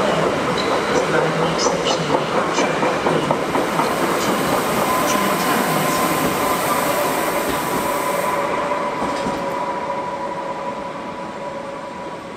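Koleje Małopolskie Impuls EN79 electric multiple unit running past at low speed, its wheels clicking over rail joints and points in the first few seconds, over a steady high whine. The sound fades in the last few seconds as the train moves away.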